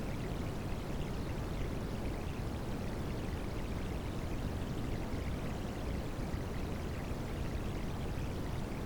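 Recorded rain sound blended with white noise: a steady, unbroken wash of water noise, heavier in the low end.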